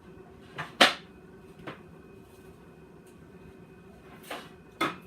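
Several short, sharp knocks and clicks of items being handled, the loudest about a second in and another near the end, over a faint steady hum.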